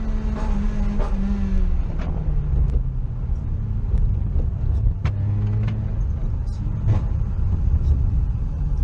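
Citroën Saxo VTS's 1.6-litre 16-valve four-cylinder petrol engine running, its engine speed dropping about two seconds in, rising again past the middle and dropping once more, over a low rumble with a few sharp clicks.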